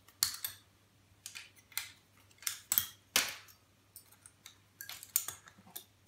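About a dozen irregular sharp clicks and clacks of small metal tools and laptop parts being handled during disassembly, with a slightly longer scrape a little past three seconds in.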